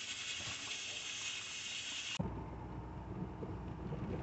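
A steady hiss of outdoor background noise cuts off sharply about two seconds in. It gives way to the low, steady rumble of a motorhome's cabin on the road.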